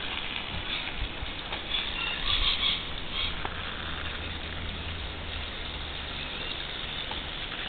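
Water running and splashing steadily from a leak in a rusty corrugated steel rainwater tank, a few faint high chirps about two to three seconds in.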